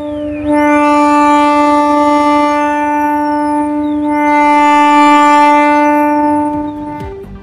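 Two long, loud horn-like blasts at one steady pitch, each about three and a half seconds, with a high sweeping whoosh over each; the sound fades out near the end.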